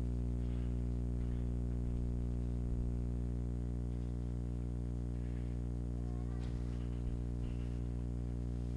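Steady low electrical hum: a constant buzz with many even overtones that does not change in pitch or level, with a few faint small noises over it.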